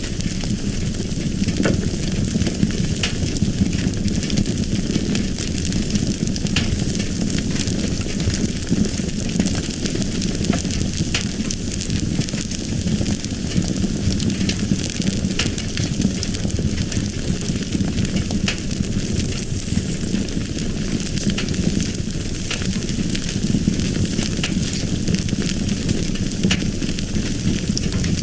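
Fire burning steadily, with a continuous low rushing and many small scattered crackles and pops.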